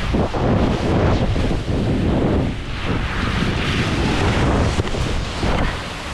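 Wind buffeting the microphone in uneven gusts, a loud rushing noise heaviest in the low end.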